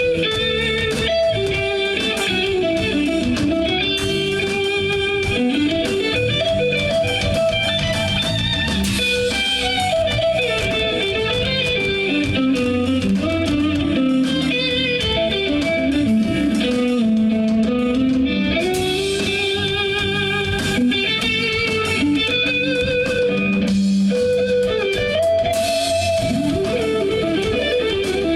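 Live band playing an instrumental piece, led by an electric guitar whose melody slides up and down in pitch over a steady beat.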